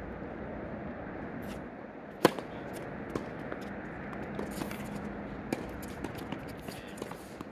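Tennis serve: one sharp pop of racket strings striking the ball about two seconds in, followed by fainter pops and taps of the ball being hit back and bouncing on the hard court over a steady background hiss.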